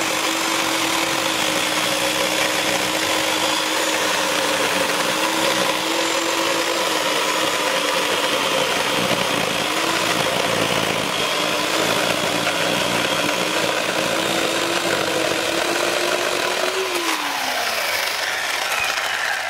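WORX WG305 14-inch corded electric chainsaw running under load as it cuts through a log, its motor pitch sagging slightly at times. Near the end the chain comes free of the wood, the motor briefly rises in pitch, then winds down as the trigger is released.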